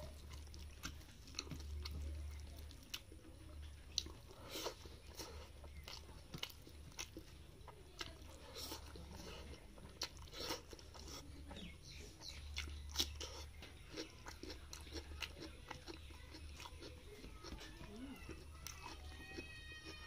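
Close-up eating by hand: chewing and mouth smacks with many short sharp clicks, and fingers squelching rice through a taro flower and pork curry on a steel plate.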